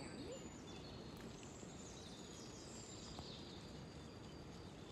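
Quiet outdoor ambience on a wooded hillside: a steady low background hiss, with small birds chirping faintly here and there.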